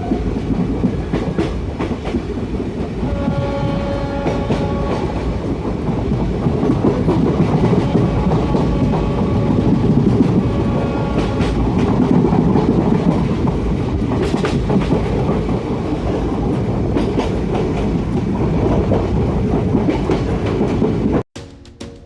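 The Mussoorie Express passenger train running at speed: a loud, steady rumble with the clickety-clack of wheels over rail joints, and a short horn blast about three seconds in. Near the end it cuts off abruptly to quieter music.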